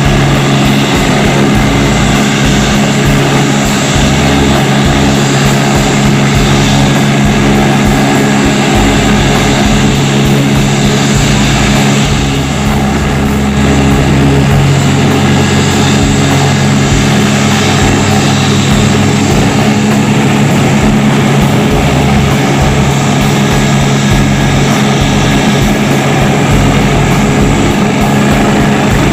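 AgustaWestland AW109 twin-turbine helicopter running on the ground with its rotor turning. It makes a steady, loud turbine whine over a low rotor drone.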